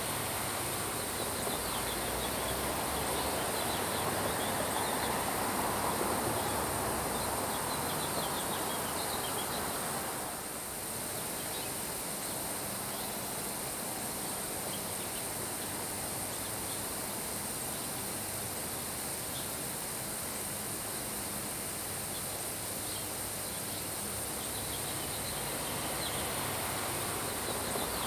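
Steady summer rain shower falling on grass, with wind swelling about four to six seconds in and a brief lull about ten seconds in.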